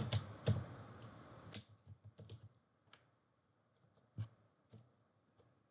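Computer keyboard typing: a handful of quick keystrokes in the first two and a half seconds, then two isolated clicks later on.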